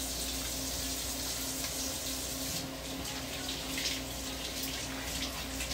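Kitchen sink tap running while hands are washed under the stream; from about halfway through the water splashes irregularly as the hands rub and move in it.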